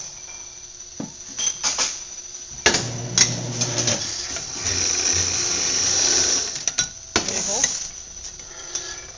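Motorised foil-capsule spinner whirring as its spinning head presses and smooths a foil capsule onto a wine bottle's neck. A short burst comes about three seconds in, then a longer run of about two seconds.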